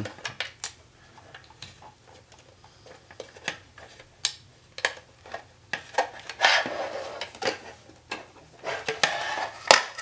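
Hands working SATA cable plugs and a 3.5-inch hard drive inside a sheet-metal NVR case: scattered sharp clicks and taps of plastic connectors and metal, with a few short scrapes in the second half.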